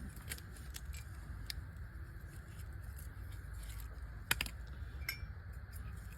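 Small metallic clicks and clinks of hand tools handled while stripping and preparing thin wires, with a sharper double click about four seconds in, over a steady low hum.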